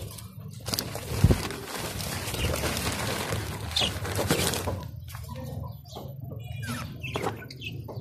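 A parrot flapping its wings: a fluttering rush of noise that starts about a second in and lasts about four seconds, with a few short chirps, then quieter scattered clicks.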